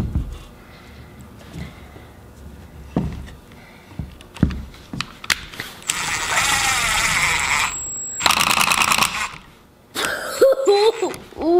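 Cordless impact driver driving a screw into a wooden joint: a motor whine about six seconds in, then about a second of rapid hammering clicks. Light knocks of wood on the workbench come before it.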